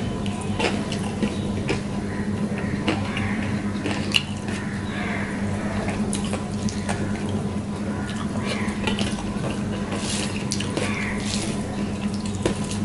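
Wet squishing and smacking of fingers mixing rice with curry on a steel plate, with chewing and scattered short clicks, over a steady low hum and hiss.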